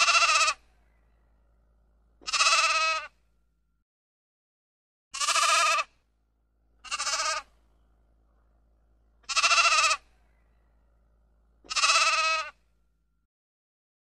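Sheep bleating: six separate bleats, each under a second long, spaced about one to two and a half seconds apart.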